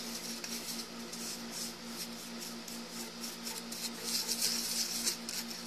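A mixing tool stirring and scraping a stiff, crumbly paste of baking soda and lotion in a plastic container: a run of soft, irregular scratchy strokes. A steady low hum sits underneath.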